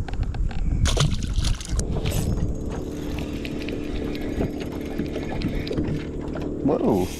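A boat's motor humming steadily at a few fixed pitches, starting about two seconds in, over a low rumble of water and wind. Brief clattering knocks about a second in.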